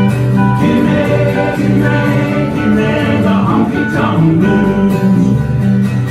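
Acoustic country band playing live: strummed acoustic guitar with a melody line wavering over it.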